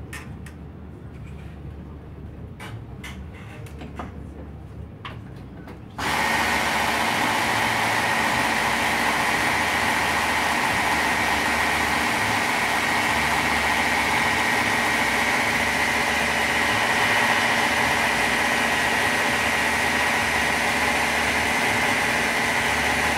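Hand-held immersion blender, silent for the first few seconds amid a few light clicks and knocks, then switched on about six seconds in. It runs at one steady speed with a constant high whine and cuts off at the very end.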